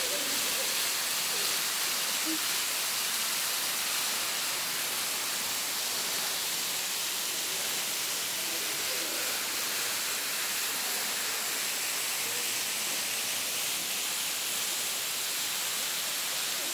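Thin waterfall pouring down a rock face into a shallow pool: a steady, even hiss of falling and splashing water.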